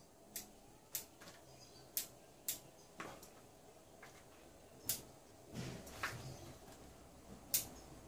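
Bonsai scissors snipping small twigs on a leafless elm bonsai, cutting away dry twigs: about seven sharp, irregularly spaced clicks of the blades, the loudest near the end.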